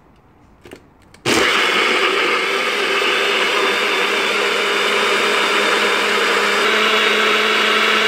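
NutriBullet personal blender switching on about a second in and running steadily, pureeing beet, frozen berries, yogurt and water in its cup.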